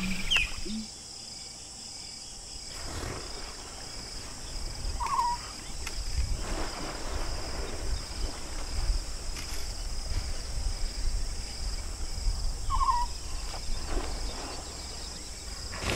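Steady high-pitched chorus of insects in the bush at dusk, with a short chirping call twice, about five seconds in and again near the end, over a low background rumble.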